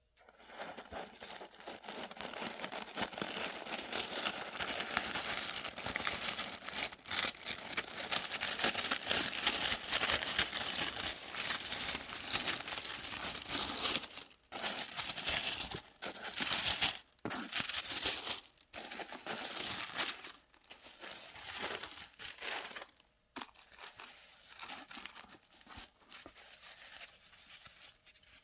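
Packaging being unwrapped by hand, with long stretches of crinkling and rustling broken by a few short pauses, growing quieter near the end.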